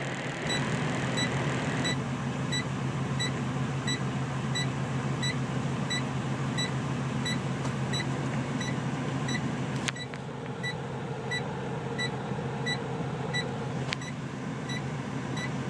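Kenworth truck engine running steadily, heard from inside the cab, with a short high beep or tick repeating a little under twice a second. Two sharp clicks come about ten and fourteen seconds in.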